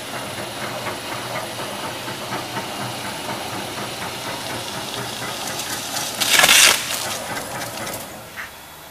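Stretch film slitter rewinder running at speed: a steady mechanical whir from its rollers and shafts with a light regular ticking. A loud burst of hiss comes about six seconds in, and the running noise drops near the end.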